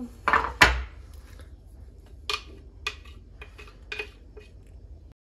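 A plastic blender cup knocking against the rim of a bowl twice, loudly, near the start, then a run of lighter clicks and taps as a spoon scrapes thick smoothie out of the upturned cup into the bowl.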